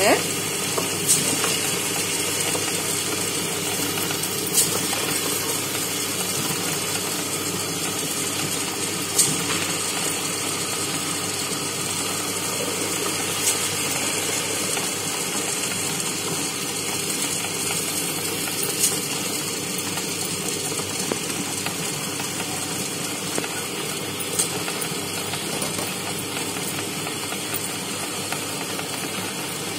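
Electric tabletop stone wet grinder running steadily, its revolving steel drum and stone rollers grinding soaked grain into a coarse batter. A faint sharp click comes every four or five seconds.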